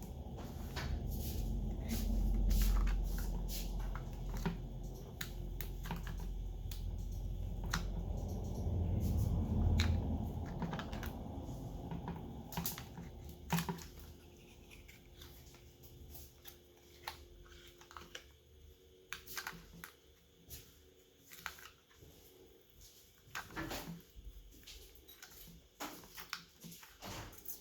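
Small sharp clicks and taps of repair tools and plastic parts on a Realme C33 smartphone being taken apart. A low rumble runs under the clicks through the first half, then fades, leaving scattered clicks.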